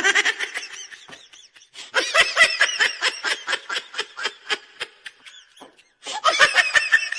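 High-pitched vocalising in rapid, rhythmic bursts, several a second, like fits of laughter, in three runs with short breaks between.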